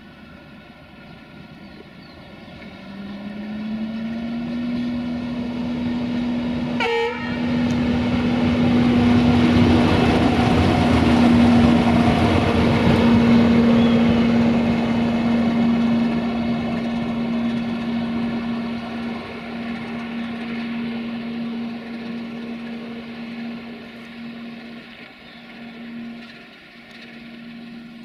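A train passing, growing louder to a peak and then fading, with a steady humming tone held throughout. A brief high sound falls in pitch about seven seconds in.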